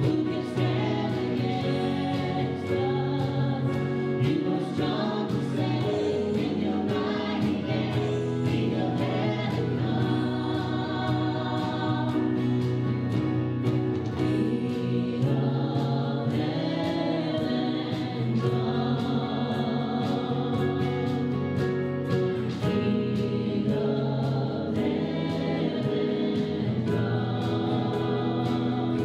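Live worship band playing a praise song: several voices singing together over strummed acoustic guitars, keyboard and drums with a steady beat.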